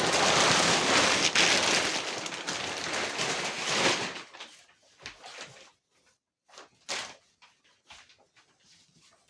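Thick plastic vacuum-pack sheeting crinkling and rustling as it is folded and pulled off a foam mattress, dense for about four seconds. After that come a few scattered short rustles and light knocks.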